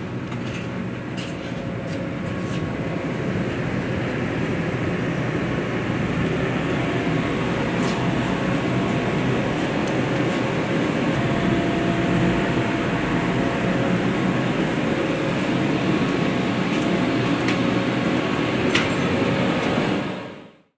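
Steady loud rumbling drone of building HVAC machinery, air-handling fans and ductwork, with a few faint thin tones in it and a few sharp knocks; it swells over the first few seconds and fades out near the end.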